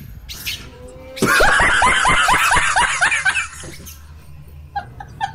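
Laughter in a quick run of ha-ha bursts, starting about a second in and lasting about two seconds, with a few fainter short bursts near the end.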